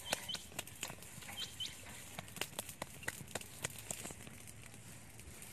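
Irregular sharp clicks and crackles throughout, with four short high-pitched bird chirps in the first couple of seconds.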